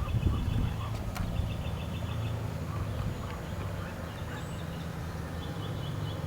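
Birds chirping outdoors in short, rapid trills, over a steady low hum.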